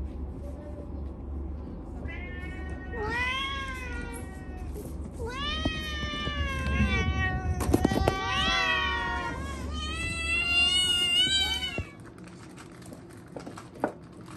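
Black kitten meowing repeatedly, about five long meows that each rise and then fall in pitch, over a low steady hum that cuts off near the end.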